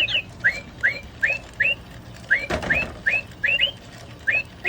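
Pet bird chirping over and over in short, sharp high notes, about two or three a second. There is a brief knock about halfway through.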